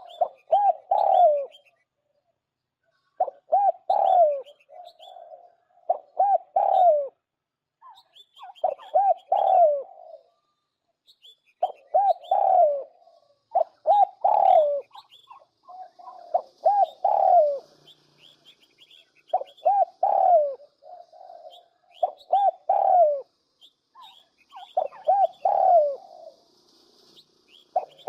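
Spotted dove cooing in short phrases of a few coos, repeating about every two to three seconds, with small birds chirping faintly higher up: a recorded lure call used for dove trapping.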